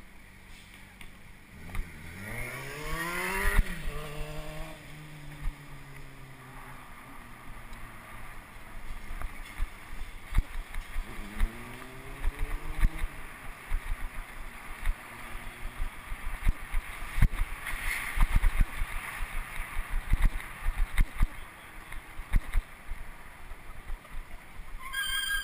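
City traffic heard from a moving bicycle, with wind buffeting and road bumps thudding on the microphone. A motor vehicle's engine rises in pitch as it accelerates, about two seconds in and again around eleven seconds in. A high squeal starts at the very end.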